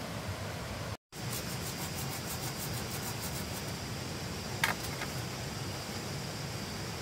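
Steady background hiss with a high, thin steady tone. A sharp knock comes a little past the middle, followed half a second later by a lighter one.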